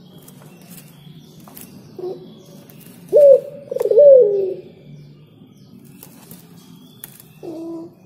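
Dove cooing: a short soft note about two seconds in, then two loud coos a little past the middle, the second sliding down in pitch, and another softer note near the end.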